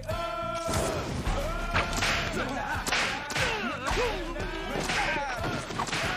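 A leather belt lashed like a whip, cracking and whooshing again and again about every half second, with yelps and shouts mixed in.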